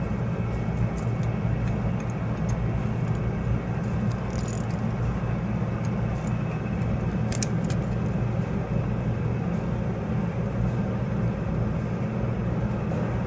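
Steady low rumble of running machinery, with a few faint metallic clicks of a wrench backing off the lock nuts on the brake's manual release.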